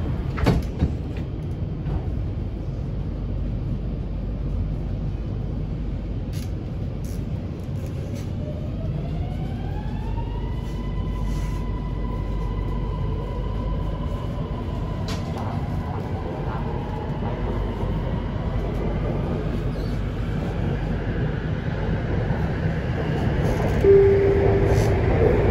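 Electric metro train pulling away from a station, heard from inside the carriage: a knock about half a second in, then the traction motor's whine rises in pitch as the train accelerates and levels off into a steady tone, over the steady low rumble of the wheels on the rails. A brief tone sounds near the end.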